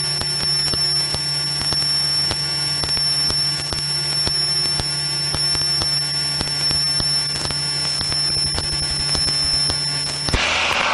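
Single-engine Piper Cherokee's piston engine and propeller droning steadily in cruise, with a steady high-pitched whine and frequent faint crackles over it. The whine and crackles cut off near the end as a voice comes in.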